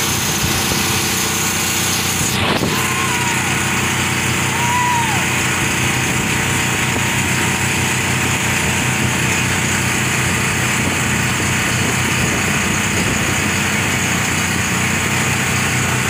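Speedboat engine running steadily at speed under the load of towing a parasail, with wind and rushing water from the wake.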